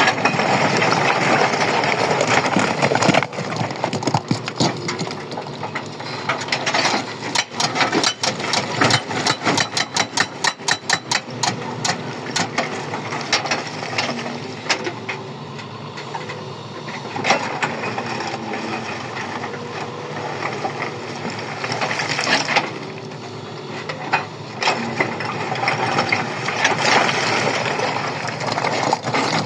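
A machine's engine running steadily, with a rapid run of clattering knocks lasting several seconds about a quarter of the way in and a few single knocks later.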